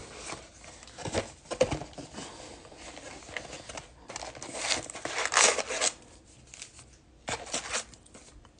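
A cardboard trading-card box being opened by hand and its foil-wrapped card packs rustling and crinkling as they are handled and lifted out, in several short bursts, loudest about halfway through.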